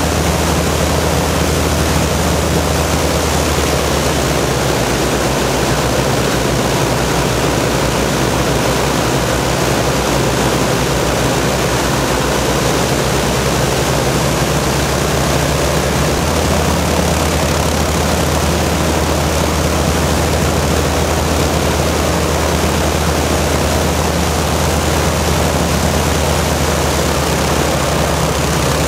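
Avro Shackleton Mk 2's Rolls-Royce Griffon V12 piston engines running steadily on a ground run, their contra-rotating propellers turning: a loud steady drone with a strong rush of propeller noise. The deepest part of the engine hum fades about four seconds in and comes back strongly about sixteen seconds in.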